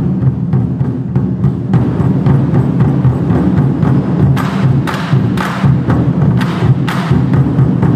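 A 24 Seasons (24 Festive) Drums troupe beating large Chinese barrel drums in a dense, steady booming rhythm. About halfway in, sharp wooden clacks of the drumsticks join the beat, about two a second.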